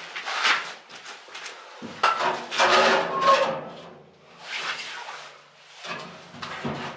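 Metal parts of a portable camping stove being handled: a run of scraping, sliding and clanking, loudest about two to three seconds in, where there is a short metallic ring.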